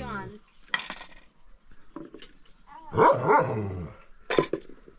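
A dog barking: a call dies away at the start, a loud bark or yelp comes about three seconds in, and a sharp short sound follows near the end.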